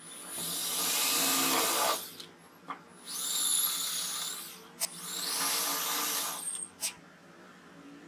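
Electric drill with a twist bit boring into a wooden block, running in three bursts of about a second and a half each, with short clicks between the bursts.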